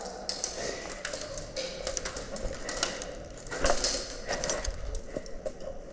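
Airsoft gunfire: about a dozen sharp clicks and snaps at irregular intervals, the loudest a little past the middle.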